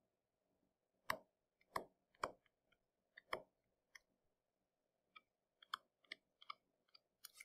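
A stylus tapping and clicking on a tablet's writing surface while a word is handwritten: about ten short, light clicks at uneven intervals.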